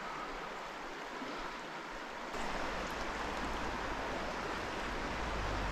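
Steady rushing of a trout stream's flowing water. About two seconds in it grows a little louder and a deeper rumble joins in.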